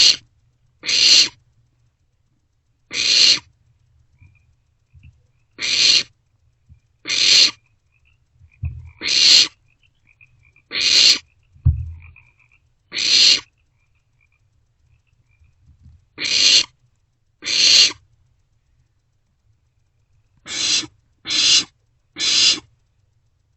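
Barn owlets giving harsh, hissing screech calls, about a dozen half-second rasps spaced a second or two apart: the begging and competing calls of owlets squabbling over prey. Two dull thumps of movement in the nest box come in the middle.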